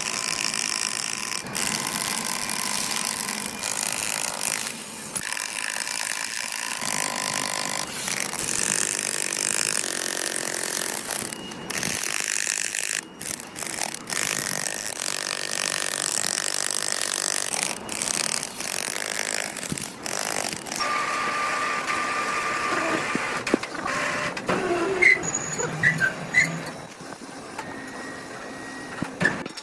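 Heavy industrial machinery noise in a forging shop: a loud hiss with mechanical hums and squeals, changing abruptly every few seconds. A few short high metallic pings near the end.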